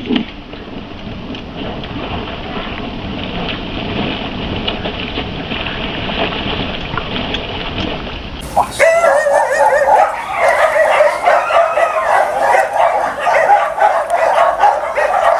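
A steady rushing noise, then from about eight and a half seconds in a dog whining and yipping in high, wavering whimpers that carry on to the end.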